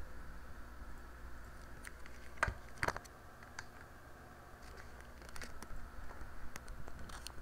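Scattered clicks of a computer mouse and keyboard: two sharp clicks about two and a half seconds in, a few more around five and a half seconds and again near the end, over a steady low hum.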